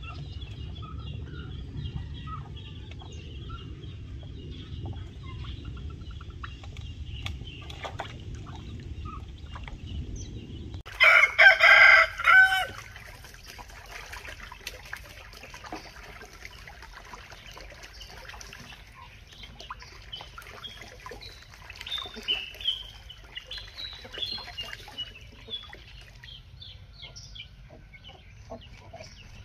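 Backyard chickens: a rooster crows once, loudly, about eleven seconds in, with quieter clucks and short calls scattered before and after. A low rumble runs under the first part and stops abruptly just before the crow.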